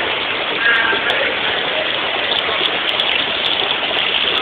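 Steady rushing of water in a sea turtle's holding tank, with a few faint clicks.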